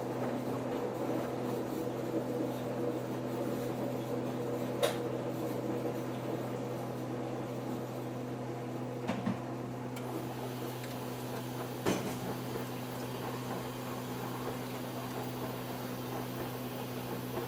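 Samsung EcoBubble washing machine running its wash cycle, a steady motor hum with a few soft knocks about 5, 9 and 12 seconds in.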